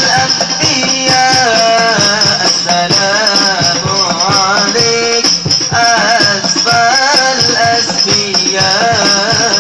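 Hadrah music in the al-Banjari style: a solo voice sings a melismatic devotional melody over steady, rhythmic strokes of rebana frame drums.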